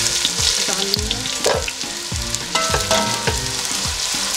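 Sliced red onions sizzling in hot oil in a pot. A wooden spoon stirs them, giving soft knocks and scrapes against the pot every half second or so.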